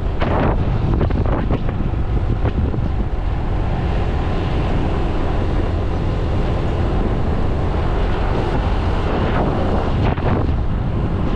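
Strong wind buffeting the microphone, a loud steady rumble that runs on without a break.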